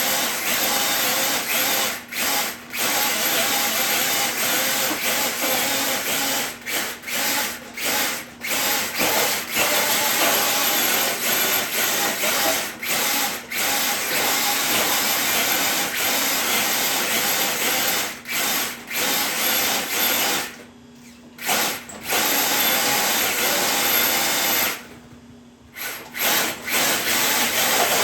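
Electric RC truck motor and drivetrain whining at full throttle, the throttle let off briefly many times, with two longer stops near the end.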